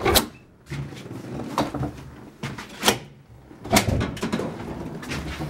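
An apartment front door being unlocked and opened: several sharp clicks and knocks from its lock and handle, the first one loudest, with low rustling in between.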